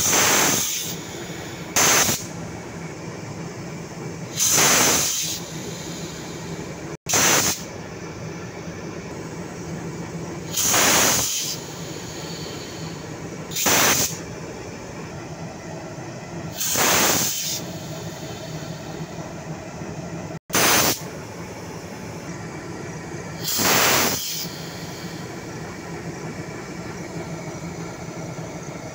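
Diesel shunting locomotive idling steadily while compressed air blows out from under its frame in repeated loud hisses. The long and short blasts alternate, nine in all, about every 3 seconds.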